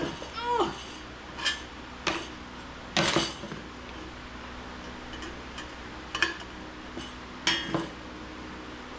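Sheet metal and steel hand tools clinking and clanking: about seven separate sharp metallic knocks with a short ring. The loudest comes about three seconds in.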